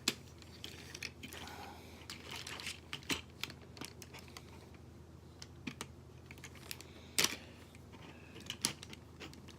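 Scattered plastic clicks and taps from a Transformers Combiner Wars Sky Lynx toy figure being handled and stood on a surface, with one sharper knock about seven seconds in.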